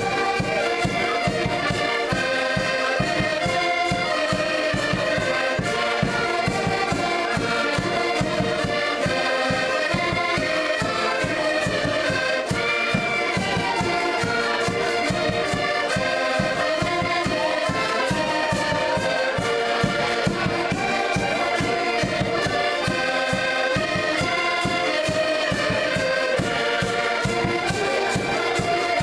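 A group of button accordions playing a tune together in an ensemble, over a steady rhythmic bass pulse.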